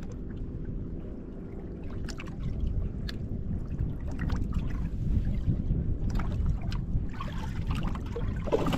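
Steady low rumble of wind and water around a fishing boat, with a few scattered light clicks.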